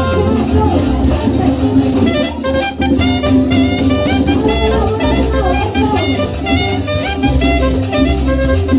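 Saxophone playing a cumbia song intro melody over a bass and drum accompaniment.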